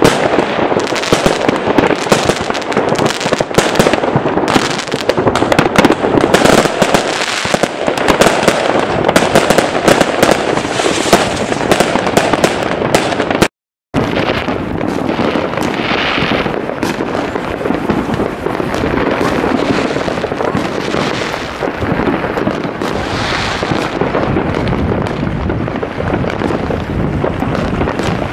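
Fireworks going off all across the town: a dense, continuous crackle of bangs and pops. The sound breaks off for a moment near the middle, and afterwards the pops are fewer, over a steadier low rumble.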